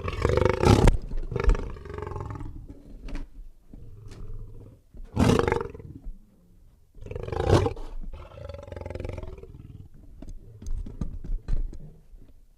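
Lion roaring and growling: a series of loud roars, the strongest about five and seven and a half seconds in, with lower, quieter growls between them, dying down to faint clicks near the end.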